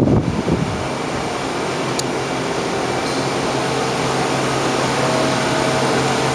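Steady machinery hum and rushing air of a subway car maintenance shop, with a low, even hum setting in about a second in. A brief low rumble at the very start.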